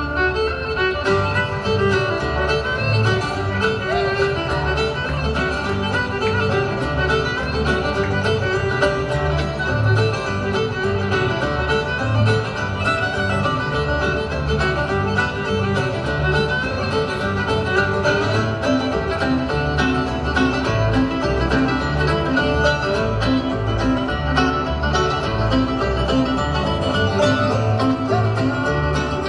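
Live bluegrass band playing with a steady beat: fiddle, banjo and acoustic guitars.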